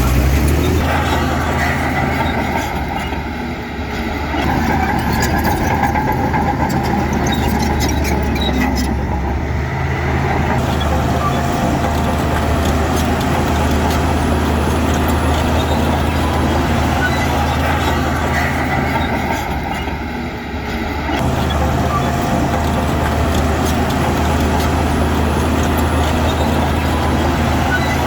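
Heavy diesel engine of construction machinery running steadily at a deep, even pitch, dropping briefly in loudness twice as the load changes.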